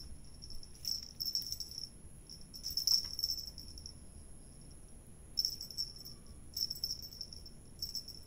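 Cat teaser toy jingling in five short, irregular bursts as it is swung and batted by a cat's paws, over a faint steady high whine.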